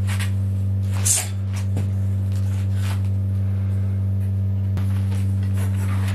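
Electric heat-treating kiln humming steadily at a low mains pitch while its heating elements are powered, climbing toward its 600-degree tempering setpoint. A single sharp click about a second in.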